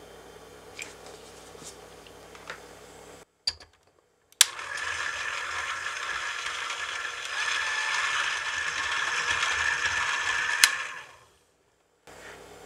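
Electric hand mixer whipping cream in a glass bowl: the motor starts about four seconds in and runs at a steady whine with the beaters whirring, getting a little louder partway through, then stops near the end.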